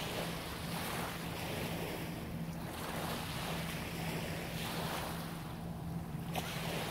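Small waves washing in and lapping on a beach shore, swelling and fading every second or two, with wind buffeting the microphone and a steady low hum underneath.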